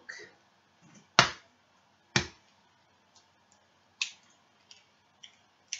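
An egg being cracked on the rim of a bowl: two sharp knocks about a second apart, followed by a few light clicks of shell.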